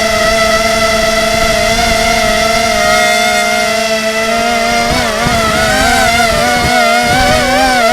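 FPV quadcopter's brushless motors whining at a steady pitch, then wavering up and down from about five seconds in as the throttle is worked.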